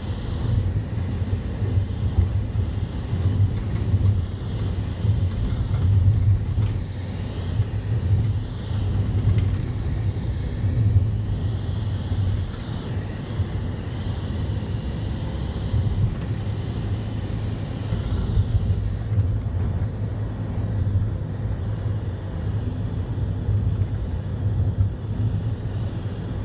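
Steady low rumble of a road vehicle's engine and tyres while driving along at speed, heard from inside the vehicle.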